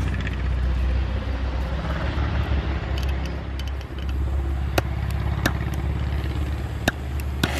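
A hand-held gas torch's trigger igniter clicks four times in the second half as it is tried for a light. Under the clicks runs a steady low rumble.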